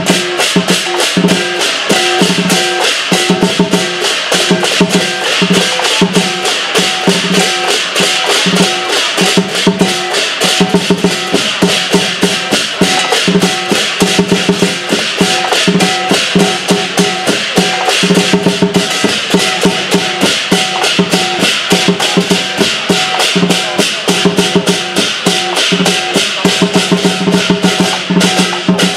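Southern Chinese lion dance percussion: a large drum beaten fast with clashing cymbals and a gong, in rapid, unbroken beating.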